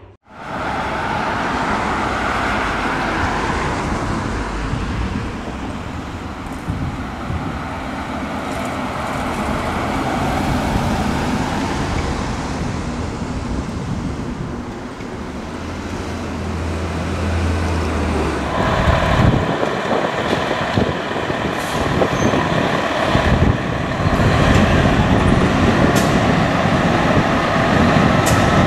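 Steady road-traffic noise. From about two-thirds of the way in, a fire engine's diesel engine runs louder and busier as the engine rolls out of the station bay, with a few short sharp hisses or clicks.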